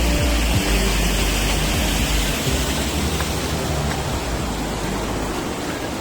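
Steady rushing noise with a strong low rumble, like flowing water or wind on the microphone.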